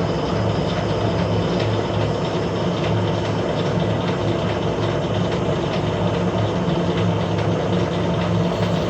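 Metal lathe running steadily while machining an internal thread: an even mechanical hum with a faint scatter of light ticks.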